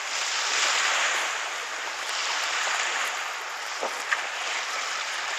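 Strong wind with choppy waves washing against the stony shore: a steady rushing noise that swells and eases.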